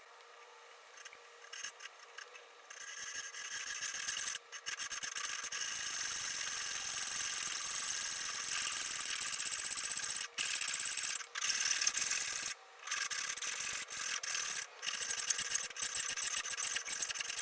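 Abrasive rubbing and scratching on the antique coffee grinder's parts during restoration work. It starts up about three seconds in and goes on as a steady high-pitched scratching, with several brief pauses.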